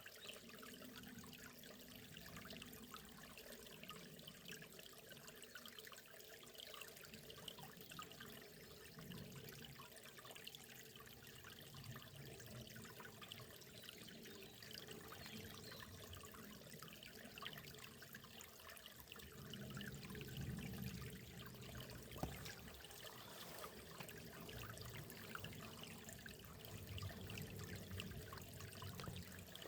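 Faint, steady flow of a small forest river, trickling and burbling over stones. The low burbling swells a little louder about two-thirds of the way through.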